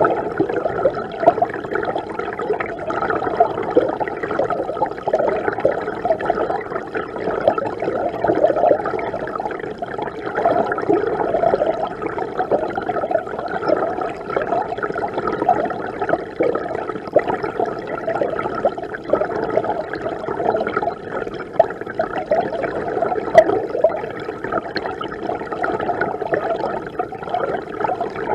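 Mountain river water flowing steadily, a continuous bubbling and gurgling rush.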